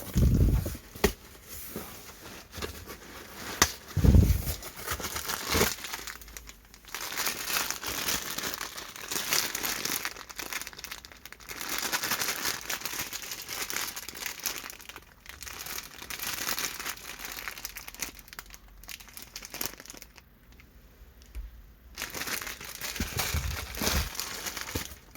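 Plastic packaging crinkling and rustling as packs of instant noodles are handled and unwrapped, with a few dull thumps.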